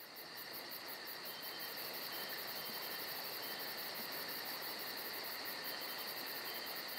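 A faint chorus of chirping insects, crickets or katydids: a fast, even pulse of high chirps, about four or five a second, over a constant trill. It fades in over the first second.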